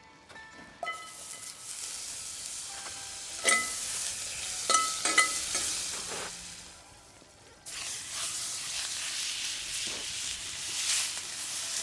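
Steak sizzling on a hot grill, with a few sharp, ringing metal clinks in the middle. The sizzle fades briefly and then starts again suddenly about eight seconds in.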